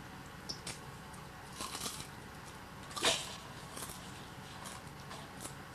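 Popcorn being chewed and crunched: scattered short crunches, with one louder crunch about three seconds in, over a faint steady low hum.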